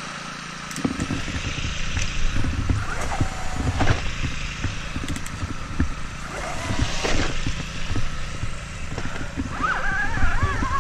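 Mountain bike riding down a rough dirt trail: steady rumble with irregular knocks and rattles as the bike and camera are shaken over the ground, and a high wavering squeal near the end.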